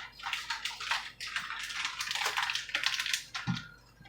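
An ingredient being shaken or sprinkled into a seafood-boil pot: a dense crackling hiss lasting about three seconds, ending with a soft knock.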